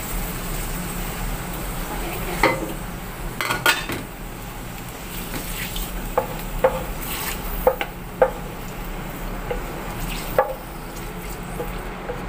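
Tofu slices frying with a light sizzle in a nonstick pan while a wooden spatula stirs and tosses them, knocking sharply against the pan every second or so over a steady low hum.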